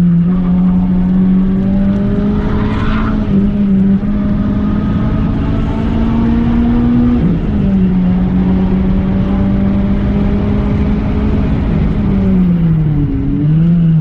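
Renault Clio III RS 197's 2.0-litre four-cylinder engine, heard from inside the cabin, running hard at fairly steady revs. The pitch drops briefly about seven seconds in and then holds a little lower. Near the end the revs fall and pick up again.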